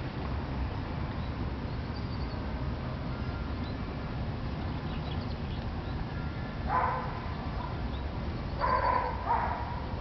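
Three short, loud animal calls from the peacock or the goats, one about seven seconds in and two close together near the end, over a steady low rumble.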